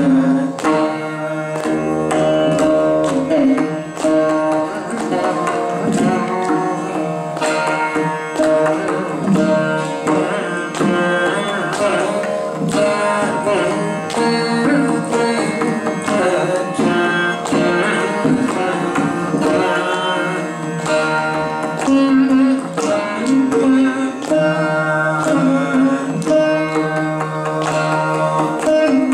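Carnatic veena playing a melodic line of plucked, gliding notes, accompanied by continuous mridangam drum strokes.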